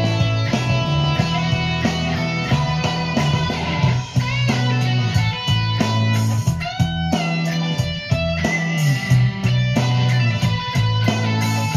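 Electric guitar, a sunburst Stratocaster-style solid-body, played through an amp. The playing mixes picked notes and strums, with a few bent notes in the middle, over a steady low bass line and an even beat.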